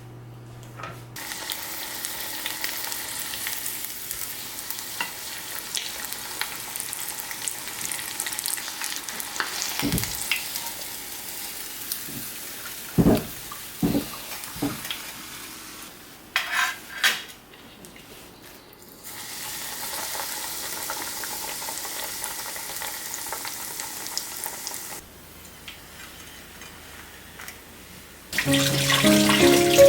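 Breaded chicken cutlets sizzling as they fry in a little oil, a steady hiss that cuts off and comes back, with a few knocks of utensils on the pan partway through. Music comes in near the end.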